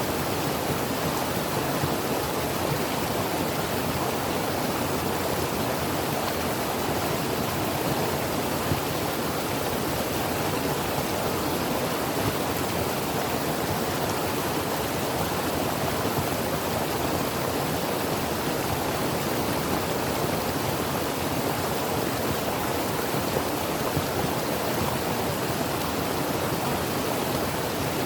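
Creek water running over rocks, a steady, even rushing.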